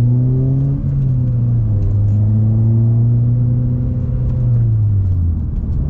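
Honda Civic Si's K24 four-cylinder engine pulling through the gears under acceleration. The engine note rises, drops sharply about a second in at an upshift, climbs again, then eases off near the end.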